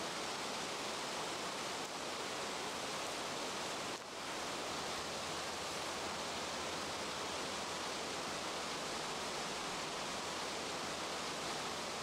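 Steady rushing outdoor ambience, an even hiss with no distinct events, dipping briefly about two and four seconds in.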